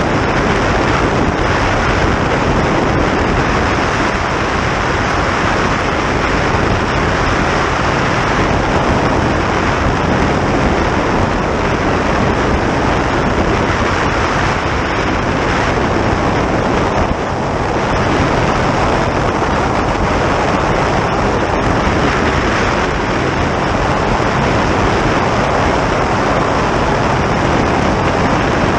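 Steady rush of wind and water noise aboard a boat running at high speed, about 60 mph, with the wind buffeting the microphone.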